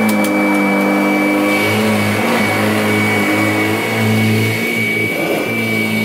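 Kirby G10 Sentria upright vacuum, fitted with a 2011 Sentria motor, running on carpet. It gives a steady motor hum with a thin high whine over it, and its pitch shifts slightly now and then.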